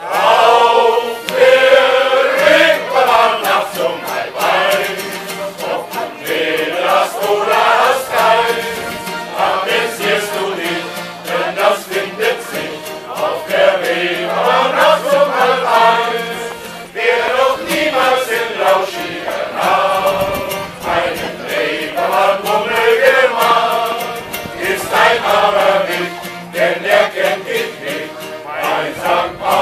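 Men's choir singing a song together in unison, accompanied by accordion and acoustic guitar.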